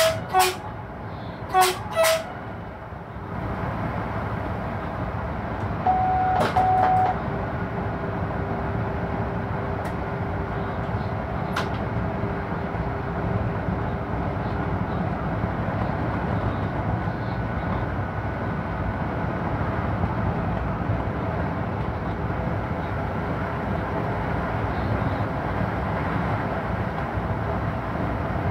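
Electric locomotive heard from inside its cab while running: a steady rumble of wheels and running gear on the rails. In the first two seconds there are several short, loud pitched signals, and about six seconds in a two-part steady tone sounds.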